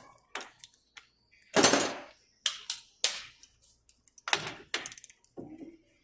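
Sharp metallic clicks and clanks of a socket wrench and torque wrench being fitted to and worked on a front hub's axle nut, about seven separate sounds with gaps between, one longer rasping one about two seconds in.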